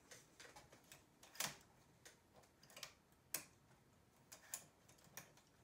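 Faint, scattered metallic clicks of hand-held multi-prong transfer tools touching the steel needles of a flatbed knitting machine as stitches are lifted off the needles.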